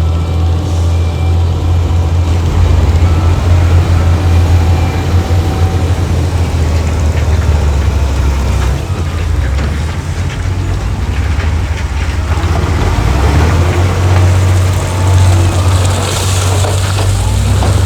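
Heavy diesel engine of earthmoving machinery running steadily with a deep, loud rumble. Near the end a rushing, gritty noise builds over it.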